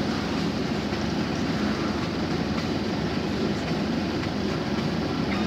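A PAZ-32053 bus under way, with a steady rumble of engine and road noise heard from inside the cabin at the front.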